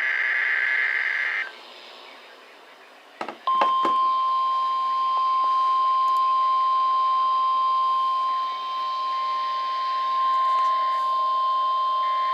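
NOAA Weather Radio emergency alert: a short burst of the SAME digital header's buzzing data tones, then a few clicks, then about three and a half seconds in the long, steady 1050 Hz weather radio alert tone, held for about nine seconds. The alert tone announces a National Weather Service message.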